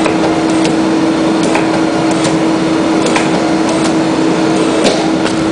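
CRU 2500B briquette press running, a steady machine hum with a constant low tone, with about six short sharp clicks scattered through it.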